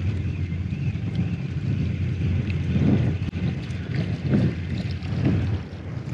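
Wind buffeting the camera microphone: a steady low rumble, with a few brief soft swells.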